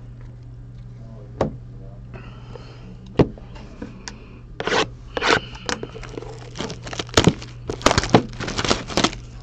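Trading cards and their packaging being handled by hand: scraping and sharp clicks, a couple at first, then a busy run of them in the second half, over a steady low hum.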